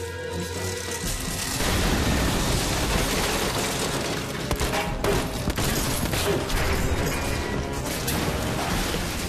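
Tense film score, joined about a second and a half in by a loud, dense mix of gunfire and booms over the music.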